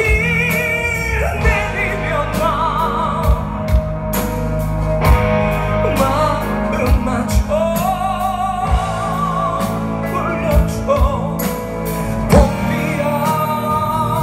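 A live rock band plays a slow song on electric guitars, bass and drum kit, with a lead voice holding long, wavering notes without clear words over the top.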